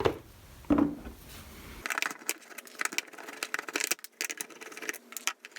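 Plastic clicks and rattles from a Toyota 4Runner master power window switch being taken apart by hand: a quick, uneven string of sharp little ticks.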